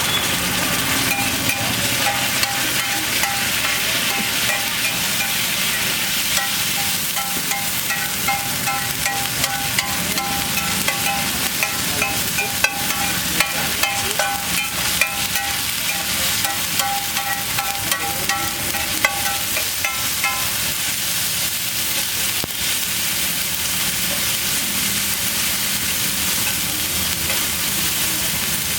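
Egg dish frying and sizzling on a hot pan at a street stall, a steady hiss with scattered sharp clicks of a utensil being worked in it.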